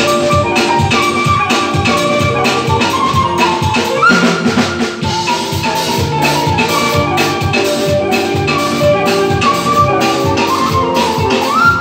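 Tütək, an Azerbaijani wooden folk flute, playing a live melody of held, ornamented notes, sliding up to a higher note about four seconds in and again near the end, over a steady drum beat.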